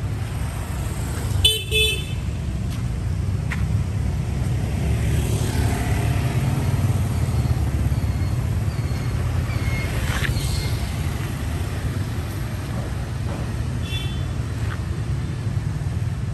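Street traffic: motorbikes passing close over a steady low rumble, with a short double horn toot about a second and a half in and a fainter brief horn beep near the end.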